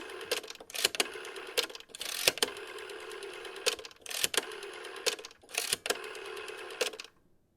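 Rotary telephone dial being turned and let go again and again: a steady whirring as it spins back, broken by sharp clicks. It cuts off about seven seconds in.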